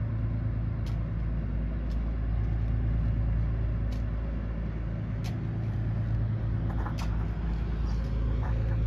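Boat engine droning steadily at a constant pitch, with a few faint clicks now and then.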